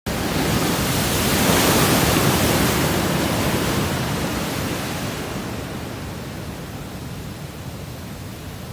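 Pacific surf: a wave breaking and rushing up the beach, loudest about two seconds in, then slowly fading to a softer wash.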